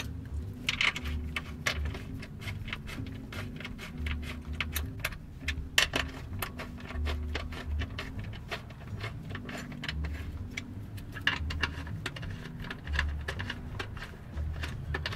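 Irregular small metallic clicks and clinks of hand tools and fasteners on the underbody hose braces as the fasteners are put back in, with occasional low rumbles.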